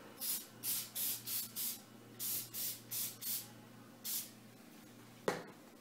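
Aerosol can of tape adhesive spray giving about ten short hissing spurts in quick succession, coating the ankle before taping. A single sharp tap follows near the end.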